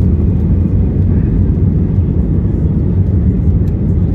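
Airbus A320 cabin noise heard from a window seat over the wing: a steady, low rumble of the engines and airframe while the aircraft is on the ground, not rising as it would on a takeoff run.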